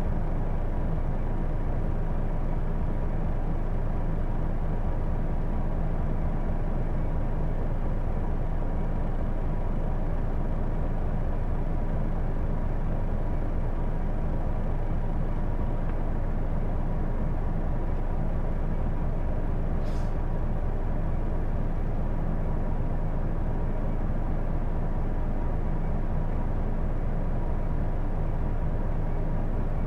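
Hino Blue Ribbon II route bus heard from inside the cabin while under way: steady diesel engine and road noise with a thin steady whine running through it. The bus is known for an abnormal running noise. Two faint ticks come about two-thirds of the way in and at the very end.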